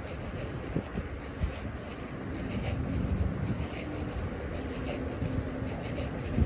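Low, steady road rumble from a moving vehicle, with wind buffeting the body-worn microphone.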